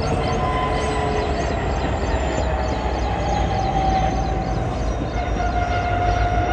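Diesel locomotive passing over a rail bridge, its engine running with a steady low rumble and a high whine that falls slightly in pitch.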